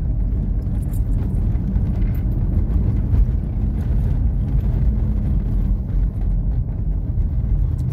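A car driving, heard from inside its cabin: a steady low drone of engine and tyre noise.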